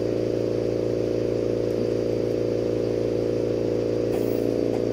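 Steady motor hum: an even drone of several fixed low tones over a light hiss, with a faint click about four seconds in.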